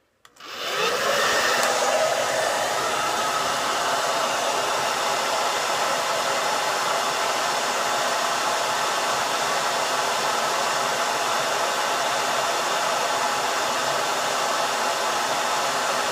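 Handheld hair dryer switched on about half a second in, spinning up over a second and then blowing steadily. It is blowing hot air onto the cut end of polyethylene tubing to soften it.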